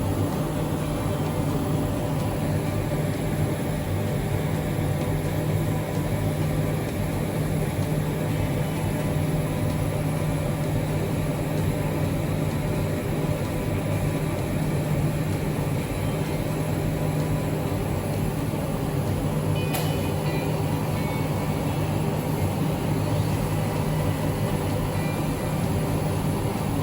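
CNC router running while milling wood: a steady machine hum with a constant spindle and motor tone. There is a single short click about three-quarters of the way through.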